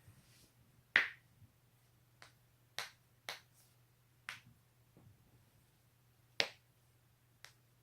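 A person's joints cracking: about seven sharp pops at uneven intervals, the loudest about a second in and about six seconds in.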